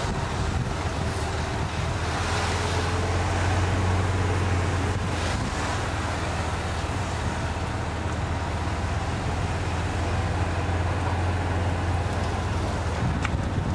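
Golf cart driving at a steady low speed: a constant low drone from the cart, with wind rumbling on the microphone.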